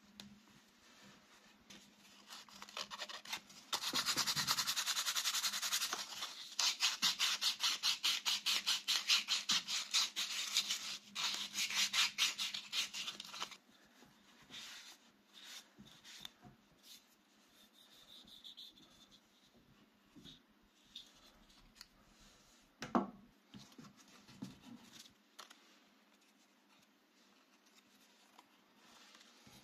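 Cloth rubbed briskly over a wooden Opinel knife handle: a steady rub, then fast back-and-forth strokes for several seconds. After that come quieter handling noises and one sharp knock about two-thirds of the way through.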